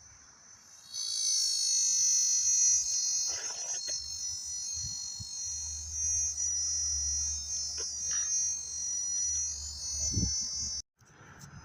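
Cicada singing: a steady, high, ringing buzz of several stacked tones that starts about a second in and cuts off suddenly near the end, with a low rumble underneath in its second half.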